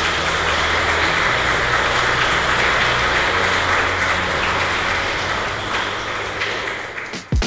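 Wedding guests applauding steadily, the clapping thinning out near the end.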